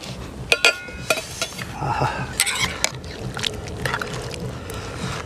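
Metal serving spoon clinking and scraping against ceramic plates and a metal pan while rice and dry-meat curry are served. There are several sharp clinks with a short ring in the first second or so, and a few more later.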